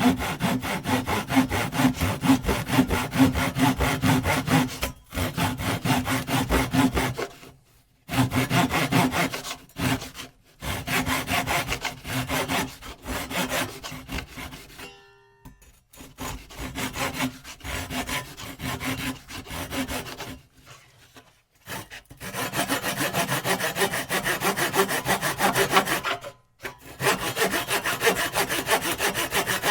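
Hand saw sawing with quick back-and-forth strokes, in runs of a few seconds broken by short pauses.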